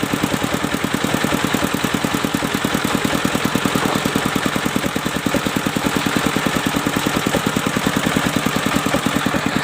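Engine driving a mobile circular sawmill, idling with a steady rapid pulsing beat of about ten beats a second.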